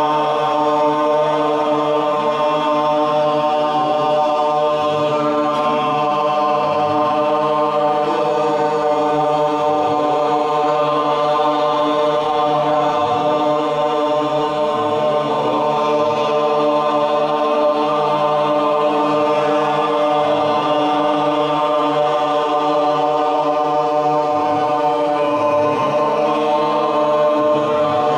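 A group of voices chanting a mantra together, led by a man singing into a microphone, over steady held tones with no break.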